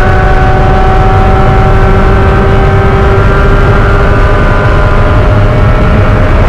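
Spec Miata race car's four-cylinder engine running hard at high revs, its pitch easing slowly downward, over a heavy, loud rumble of wind and road noise.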